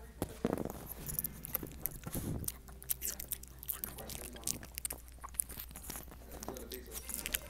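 A small dog eating from a plastic container close to the microphone: quick, irregular crunches and clicks of its chewing.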